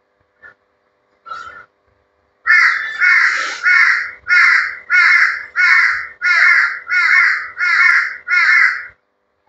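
A bird outdoors calling loudly over and over: about ten calls in a row at roughly two a second, starting a couple of seconds in, after a single call just before.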